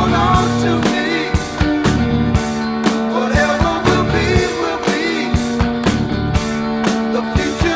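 Rock song with a steady drum beat, guitar and a singing voice.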